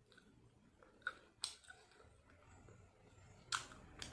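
Quiet chewing of saucy roast chicken, with a few sharp clicks spread through.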